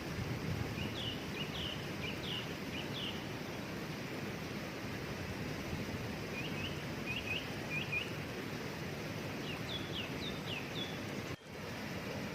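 Steady rush of a waterfall with a small songbird singing over it in three short runs of quick, repeated chirps. The whole sound cuts out for an instant near the end.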